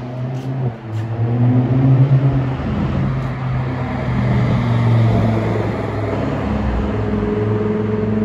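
Lamborghini Huracán's V10 engine accelerating as the car drives past. Its note rises and is loudest about two seconds in, then holds as a steady drone while the car pulls away.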